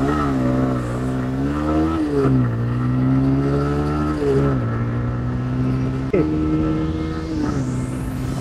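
TVS Raider 125's single-cylinder petrol engine accelerating hard and shifting up through the gears, its pitch stepping down at each shift, about two, four and a half and seven and a half seconds in. A short sharp click sounds about six seconds in.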